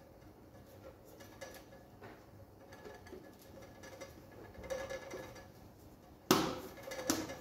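Faint handling noises as the plastic fuel tank of a DIY injector test bench is gripped and its lid worked, then a sharp knock a little after six seconds in and a lighter one just before the end.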